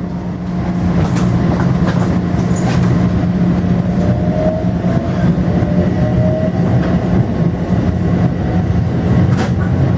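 Inside a Metro-North M7A electric multiple-unit car rolling out of a station: a steady low hum of the running gear, a faint rising whine in the middle as the train picks up speed, and scattered clicks of the wheels over rail joints.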